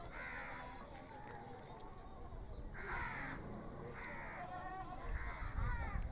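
Domestic ducks giving several short, harsh quacks, the loudest about three seconds in, with a low rumble near the end.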